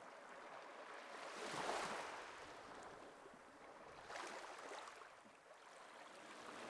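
Faint wash of small sea waves, swelling softly twice.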